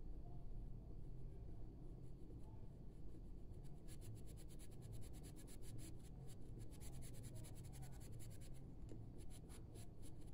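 Carmine colored pencil scratching on drawing paper as it shades, faint. About four seconds in, it turns into quick, short back-and-forth strokes, several a second.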